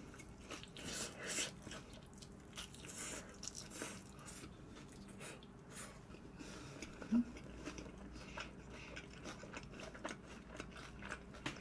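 Close-up crunching and chewing of crispy fried chicken: a few crisp bites in the first four seconds, then quieter chewing with small clicks. A brief hummed 'mm' comes about seven seconds in.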